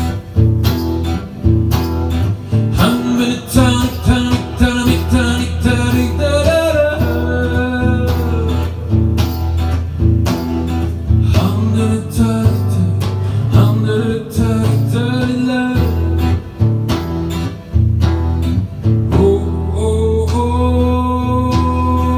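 Guitar-led music with a steady bass and a melody held in long, gliding notes.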